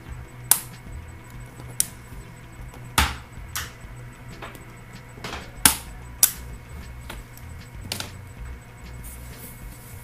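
Irregular sharp plastic clicks and snaps, about eight of them, as a plastic pry tool is worked along the edge of a Microsoft Surface RT tablet's case, over a low steady hum.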